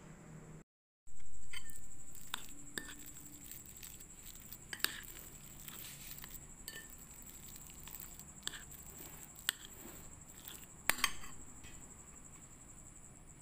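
Metal fork clinking and scraping against a glass bowl while mashing boiled potatoes with butter: scattered short clinks, with a sharper double clink near the end. A loud rush of noise starts about a second in and fades over a few seconds.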